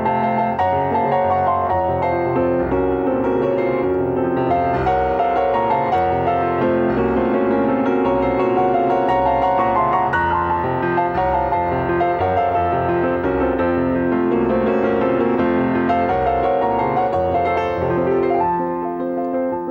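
Instrumental piano music, steady and fairly loud.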